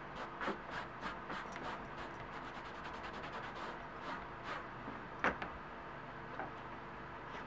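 Cloth rubbing conditioner into a leather belt with a snakeskin overlay, in short scratchy strokes, with one sharper knock about five seconds in.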